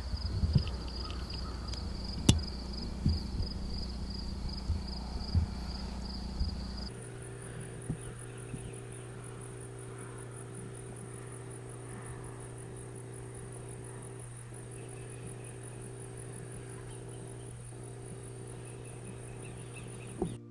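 Insects trilling in a steady pulsing chorus, with a few sharp clicks and knocks over it. About seven seconds in, the trill changes to a higher-pitched one over a low steady hum.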